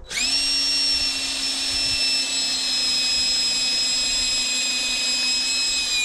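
DeWalt cordless drill running steadily, driving a 30 mm carbide-tipped I-Grip stud into a rubber skid-steer track lug. Its motor whine starts at once and holds steady, easing slightly lower in pitch.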